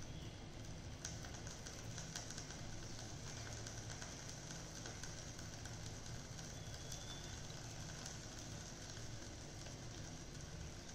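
Faint crackling and sizzling of sandwiches grilling between the hot plates of a closed Prestige electric sandwich maker, over a steady low hum.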